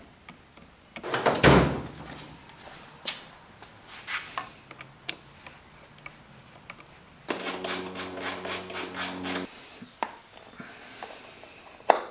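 Clicks and knocks of hand tools working on a motorcycle handlebar lever assembly, with one loud knock about a second and a half in. A short rhythmic buzz with a steady hum, about four pulses a second, runs for about two seconds in the last third.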